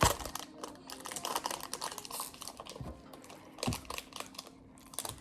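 Crinkling and crackling of a frozen dessert's wrapper being torn open and peeled back, with a knock at the start and another about two-thirds of the way through.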